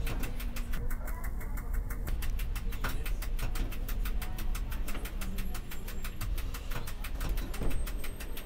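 Tram running along its tracks, heard from the driver's cab: a steady low rumble of motors and wheels.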